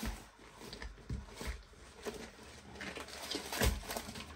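Paper and the plastic-covered canvas of a diamond painting kit rustling and crinkling as they are unrolled and handled on a wooden table, with a few soft knocks and one louder thump near the end.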